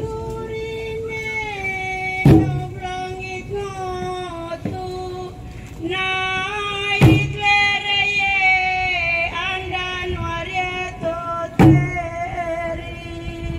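A group of voices singing a slow song in unison, holding long notes that glide between pitches. Three loud strikes, like beats on a drum, land about four and a half seconds apart.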